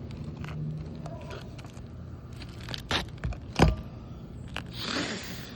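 Old, brittle three-tab asphalt shingles being handled, with rustling and scraping and two sharp cracks about three seconds in; the shingles are aged, brittle and shedding granules.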